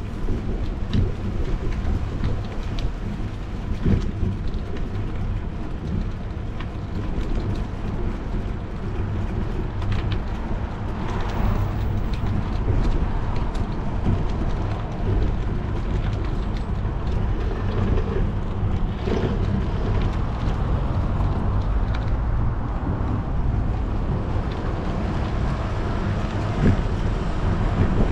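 Wind rushing over the microphone and tyres rumbling on pavement during a bicycle ride, with occasional light clicks.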